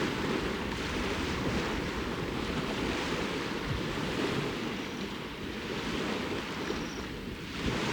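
Waves washing onto a lakeshore in steady, gently swelling surges, with wind buffeting the microphone.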